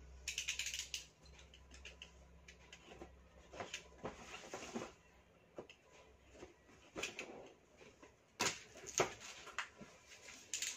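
A cardboard box being worked open with a small hand tool: scattered scratching, clicks and cardboard rustles, with a dense, scratchy burst about half a second in and sharper ones near the end.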